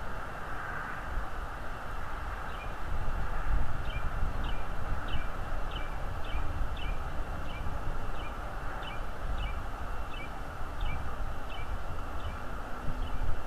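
A bird calling a steady run of short, downslurred chirps, about two a second, starting a couple of seconds in, over a constant low rumble.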